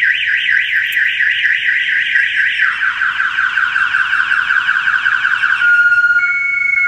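Clifford 3305 car alarm siren going off: a fast, repeating sweeping warble, several sweeps a second, that switches near the end to a steady tone, with a second higher tone joining it.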